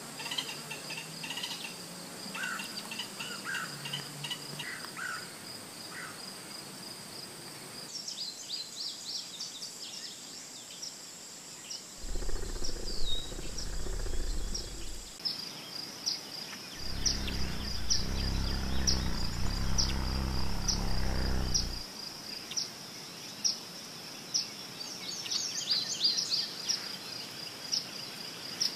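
A steady chorus of crickets and other insects trilling, with a few small bird chirps in the first seconds. Twice, from about 12 to 15 s and from about 17 to 22 s in, a louder low hum or rumble comes in over them.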